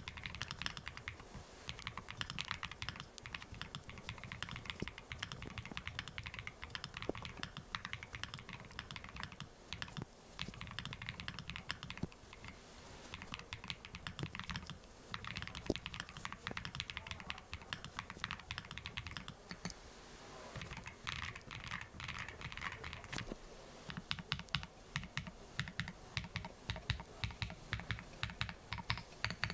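Steady, fast typing on a 67-key mechanical keyboard with purple 苦茶 (Kucha) switches and botanical-garden keycaps: a continuous patter of keystroke clicks. The keystrokes come faster and louder in the last few seconds.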